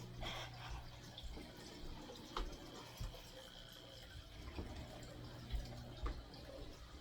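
Faint dripping, trickling water over a low steady hum, with a few soft knocks and clicks.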